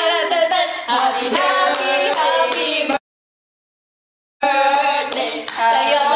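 Young women singing together without bass accompaniment, their voices sliding and overlapping. The sound cuts to total silence for about a second and a half in the middle, then the singing resumes.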